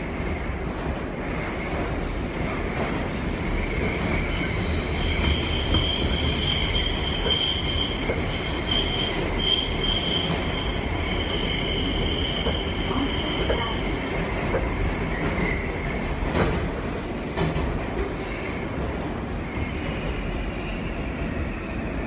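R143 subway car heard from inside while it runs: a steady rumble of steel wheels on the track. From about four seconds in until about seventeen seconds there is a high, multi-pitched screech of the wheels squealing on a curve. Near the end a falling whine comes in as the traction motors slow the train.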